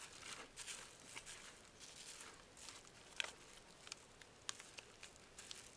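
Faint rustling with a few light clicks and taps scattered through, like parts being handled and rummaged through, over near silence.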